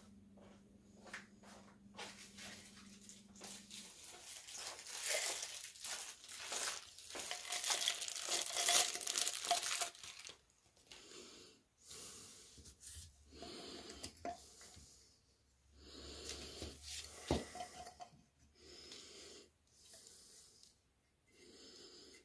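Rustling and scraping as freshly cast cement vase frames and a glass test tube are handled on newspaper. The noise is loudest for about six seconds from about four seconds in, then breaks into shorter scuffs with one sharp click.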